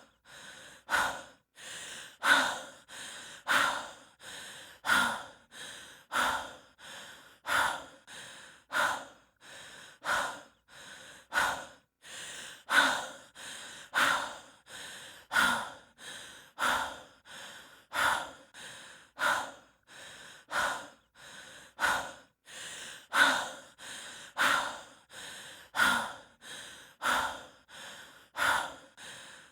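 A person breathing hard and rhythmically from the exertion of hiking: a loud breath followed by a softer one, each pair repeating a little over a second apart.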